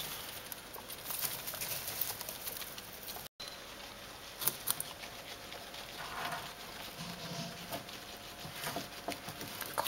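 Guinea pigs rustling through hay and nibbling vegetables: a soft, busy patter of small ticks and crackles, with a momentary dropout about three seconds in.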